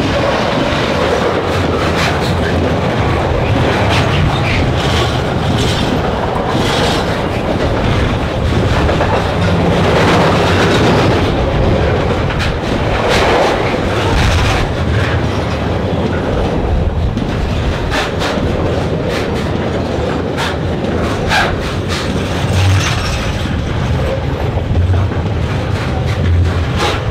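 Freight train's container flat wagons rolling past close by at speed: a steady loud rumble of wheels on rail with clickety-clack over the rail joints.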